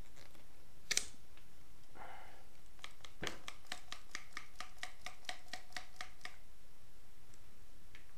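Rotary leather punch being worked on stiff rawhide while punching stitching holes. There is one sharp snap about a second in, then a short rub. After that comes a quick, even run of clicks, about four a second, lasting some three seconds.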